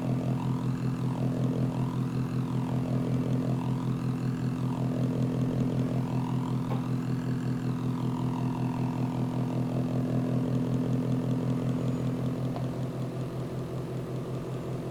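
Transistor circuit buzzing with a steady, fast-pulsing low hum while fainter high whining tones rise and fall as its potentiometer is turned up and down. The hum gets a little quieter near the end.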